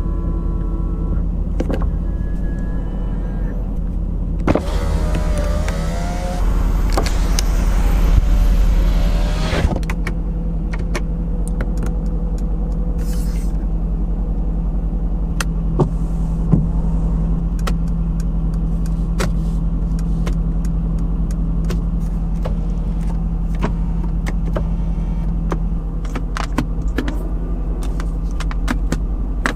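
Mercedes-AMG GT C's 4.0-litre twin-turbo V8 idling steadily, heard from inside the cabin. About four seconds in, a power window motor runs for about five seconds, and switches and buttons click now and then.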